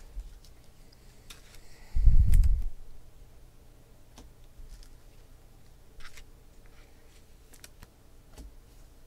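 Trading cards and card boxes being handled on a tabletop: scattered light clicks and taps, with one low thump about two seconds in.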